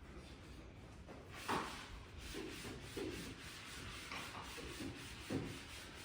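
Irregular rubbing and scraping from hand woodworking, with a sharper knock about a second and a half in.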